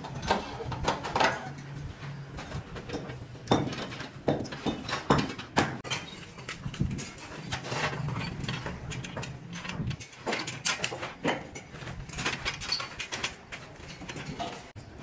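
Scattered knocks and clanks of steel scaffolding frames being handled, the sharpest about three and a half seconds in and twice more between five and six seconds, over a low hum.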